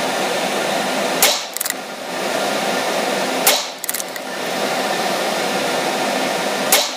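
Three unsuppressed shots from a CZ 457 bolt-action .22LR rifle firing RWS Rifle Match, about two and then three seconds apart, over a steady fan-like background noise.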